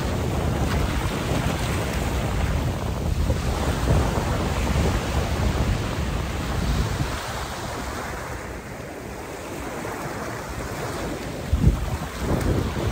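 Small waves washing up a sandy beach, with wind buffeting the microphone in a low rumble that eases about halfway through. A brief thump comes near the end.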